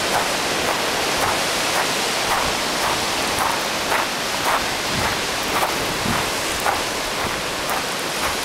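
Steady rushing of wind and ocean surf on the microphone, with footsteps on the dirt trail falling regularly about twice a second.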